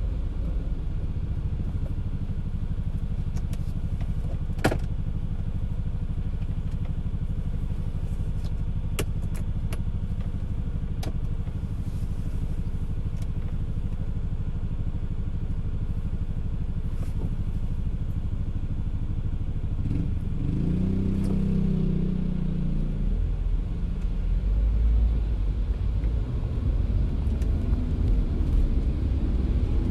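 Car driving in the rain: a steady low engine and road rumble with a few scattered sharp ticks. About 20 seconds in, a pitched hum swells and fades, and the low rumble grows louder after it.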